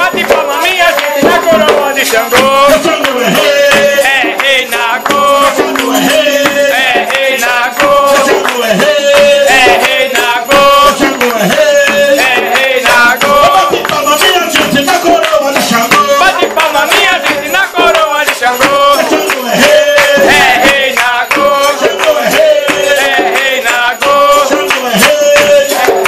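Umbanda ponto for Xangô: voices singing a chant over shaken rattles and percussion keeping a steady beat.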